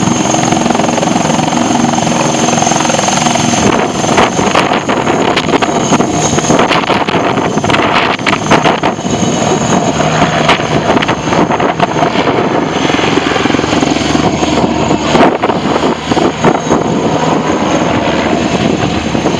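Eurocopter Tiger attack helicopter in a flying display: its turbine engines and main rotor run loud, with a steady whine at first, then from about four seconds in a harsher sound full of rapid rotor chops.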